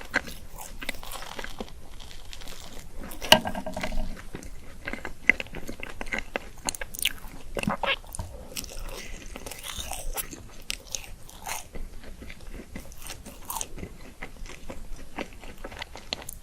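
Bites into the chocolate shell of a Magnum ice cream bar, the shell cracking and crunching, with chewing in between. The sharpest crack comes about three seconds in.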